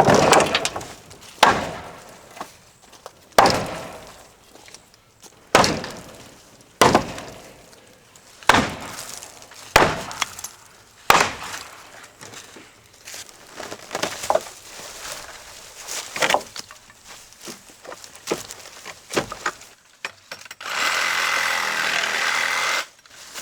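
Demolition of an old wooden porch: a series of about a dozen sharp, heavy strikes, one every second or two, each with cracking and clattering, then a steady hissing noise for about two seconds near the end.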